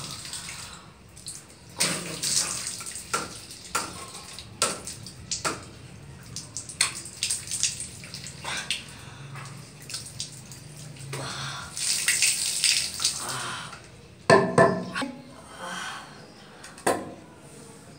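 Water running from a low tap and splashing as hands scoop it up to wash the face, in uneven splashes with a louder burst about three quarters of the way through.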